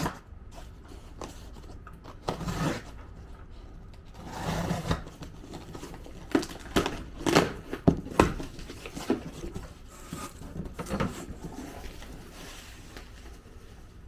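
A parcel being opened by hand: tape and packaging tearing and rustling, with a run of sharp clicks and knocks in the middle as the box and wrapping are handled.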